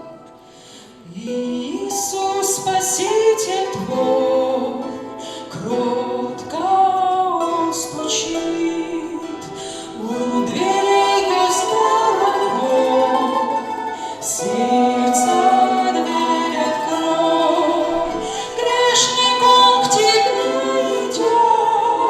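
A Christian hymn sung by several voices in harmony, female voices prominent, in phrases of a few seconds each.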